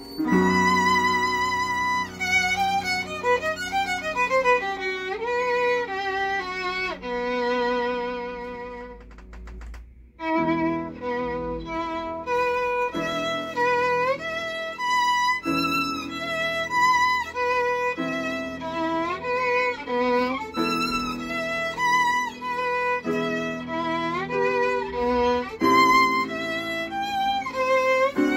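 Violin playing a melody with vibrato over upright piano accompaniment. About ten seconds in, the music dies away to a brief pause, then both take up again.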